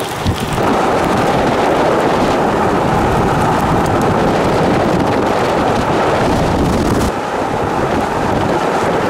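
Loud, steady rush of thunderstorm noise, wind and rain, easing slightly about seven seconds in.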